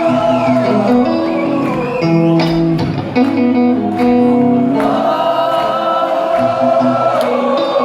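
Live band music with guitar and many voices singing a held melody together, recorded from within the audience.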